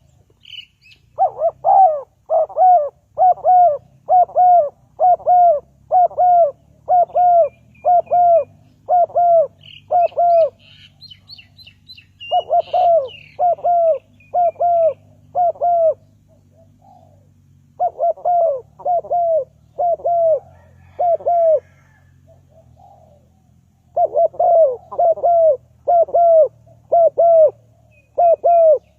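Dove cooing: runs of evenly spaced coo notes, about two a second, in four bouts separated by short pauses. Faint chirps of other birds are heard behind it.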